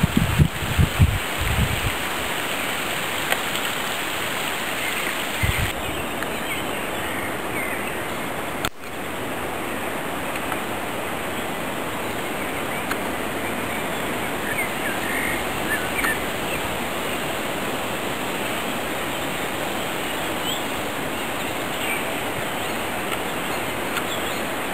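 Steady rush of running water from a stream swollen after a flood, with a few faint bird chirps in the second half. Low thumps on the microphone in the first two seconds.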